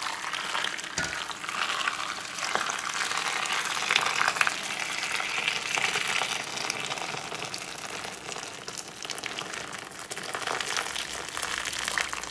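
Boiling water pouring in a continuous stream from a kettle into a stainless steel bowl of tomatoes, splashing steadily over them.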